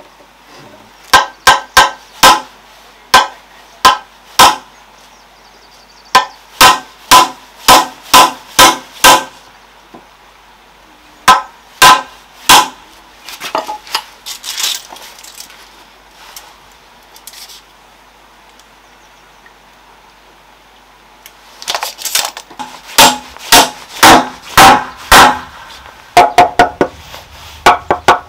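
Hammer striking nails into wooden beams: several runs of sharp, rapid blows a few seconds long, separated by pauses, with a longer quiet stretch in the middle.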